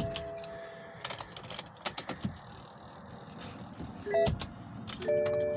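BMW 530i's dashboard warning chimes. A held chime chord stops about a second in, followed by a scattered series of sharp clicks, and a new chime sounds near the end. This comes during a start attempt on a drained battery boosted by a jump pack.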